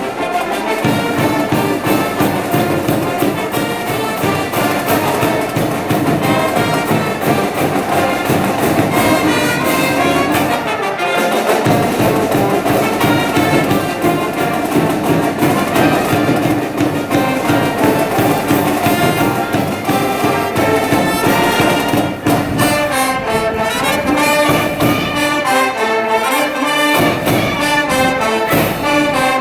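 High school brass band playing a baseball cheering song: trumpets and trombones with drums keeping a steady beat.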